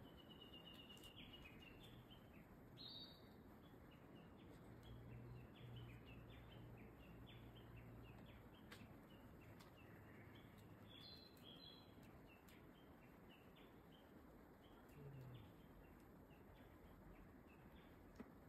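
Faint bird calls: many short, high chirping notes repeated throughout, over a near-silent outdoor background. A single sharp click sounds near the end.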